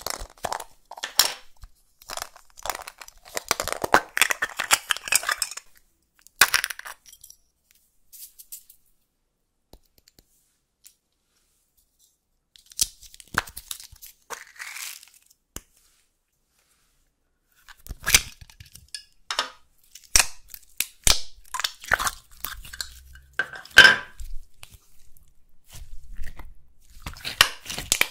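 Clear plastic packaging crinkling and crackling as it is handled and pulled apart, in irregular bursts with a couple of silent gaps.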